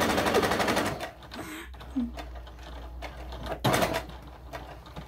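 Electric sewing machine stitching at speed through cotton fabric, a fast, even run of needle strokes that stops about a second in. After it come a few quieter clicks and a short burst of noise a little before four seconds.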